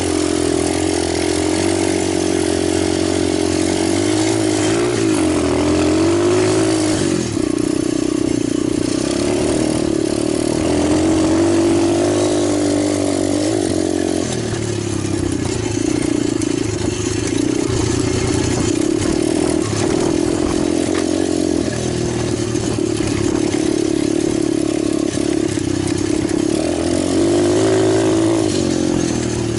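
Italjet 125cc pit bike engine running, its pitch rising and falling several times as the throttle is opened and eased off.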